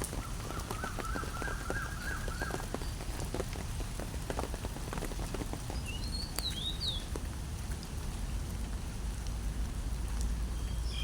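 Rain falling steadily, with drops tapping on an umbrella overhead. Brief bird chirps come in about six seconds in and again near the end.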